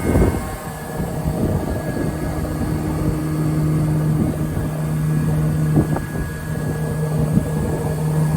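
Altendorf sliding table panel saw running with a steady hum, with a short loud burst at the start and a few brief knocks later on.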